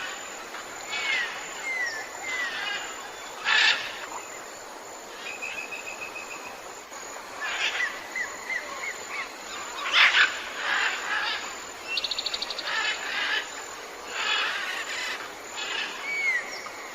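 Several birds calling: short chirps, slurred whistles and a quick trill about twelve seconds in.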